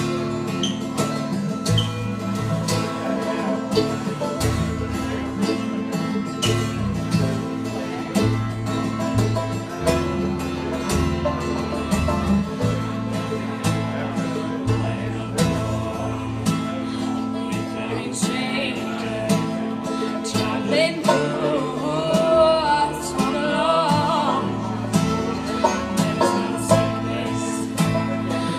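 Acoustic bluegrass band playing: strummed acoustic guitar and plucked upright bass notes, with a wavering fiddle-like melody coming forward from about eighteen seconds in.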